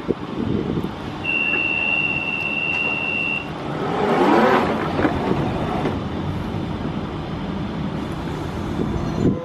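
London Underground 1992 Stock train standing at a platform: a steady high door warning tone sounds for about two seconds, then the sliding doors close with a rush and a knock about five seconds in, over the train's steady running noise. A sharp thump comes near the end.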